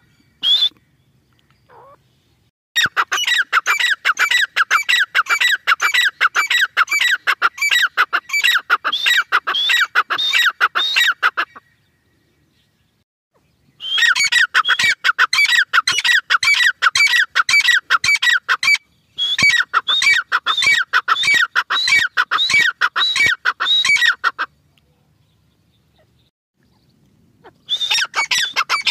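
Grey francolin (teetar) calling: long runs of rapid, high, repeated notes, about four a second, each run lasting several seconds, broken by pauses of two to three seconds.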